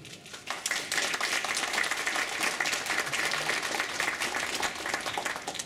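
Audience applauding: a dense patter of clapping that builds just after the start and dies away near the end.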